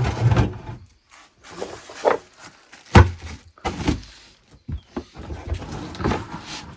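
Irregular knocks and rubbing, several separate hits a second or so apart.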